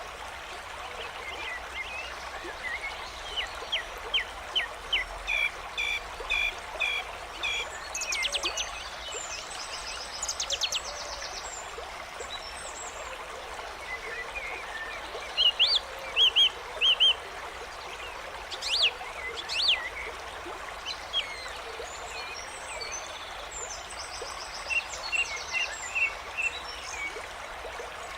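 Nature sound-effects track: songbirds chirping in short repeated phrases over the steady rush of a stream.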